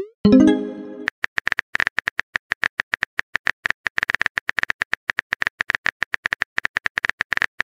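A short pitched notification chime near the start as a chat message arrives, then a rapid, irregular run of phone-keyboard key clicks as a reply is typed out.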